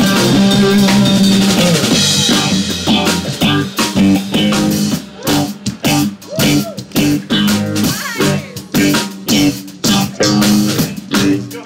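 A live jazz combo's electric guitar, electric bass and drum kit improvising together. From about five seconds in the band plays short stop-start hits with brief gaps between them.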